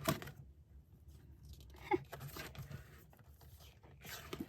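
Paper calendar pages being handled and turned, with a few short rustles and taps: one near the start, one about two seconds in, one near the end.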